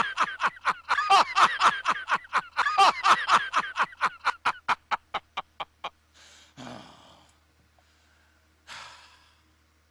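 A man laughing in a long run of rapid "ha-ha" pulses, about five a second, that weaken and die away about six seconds in. Two heavy breaths follow, one soon after and one near the end.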